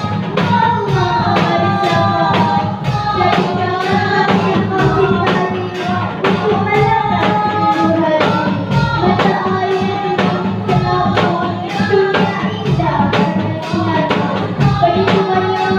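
A girl sings the lead of a sholawat devotional song through a microphone over a hadroh ensemble of rebana frame drums and bass drum, the drums keeping a quick, steady beat.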